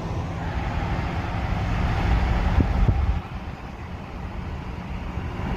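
Lamborghini Aventador V12 under acceleration, heard from another moving car: a low rumble that builds for about three seconds, with two short pops near the peak, then drops away suddenly to steady road noise.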